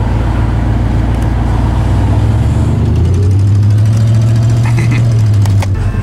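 Vehicle engine drone and road noise inside the cab while driving, the engine note rising a little and holding about three seconds in. A few light clicks near the end.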